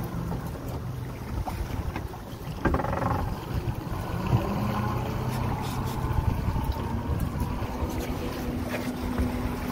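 Fishing boat's engine running, its low hum shifting in pitch now and then, with wind buffeting the microphone.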